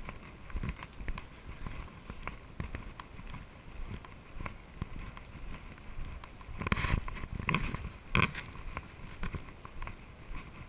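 Mountain bike rolling over a bumpy dirt trail, heard through a mounted action camera: irregular rattles and knocks from the bike and camera mount. A few louder jolts come around seven to eight seconds in.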